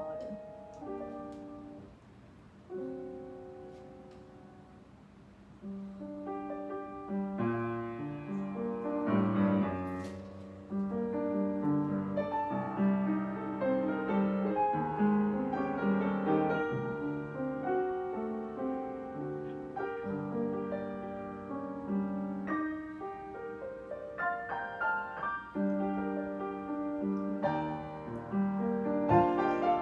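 Piano music: a few sparse notes at first, then fuller chords from about six seconds in.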